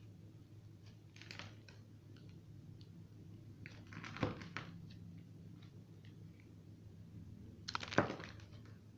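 Knife cutting dry soap into cubes: crisp scratchy crunching with small scattered clicks and two louder crunches, one about four seconds in and the loudest near the end, over a faint steady hum.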